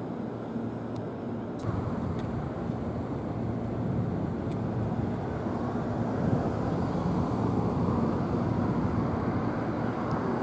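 Steady low rumble of outdoor rail-yard and city background noise, stepping up a little about one and a half seconds in.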